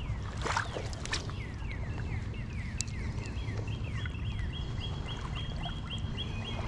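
A songbird singing a run of repeated whistled notes, first a series sliding downward, then switching about halfway to a quicker string of short, even notes at a steady pitch. A steady low outdoor rumble lies under it, with a couple of faint knocks in the first second.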